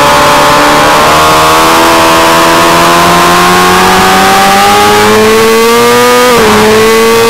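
600 cc racing motorcycle engine accelerating hard at high revs, its pitch rising steadily, then dropping with an upshift about six seconds in before it climbs again.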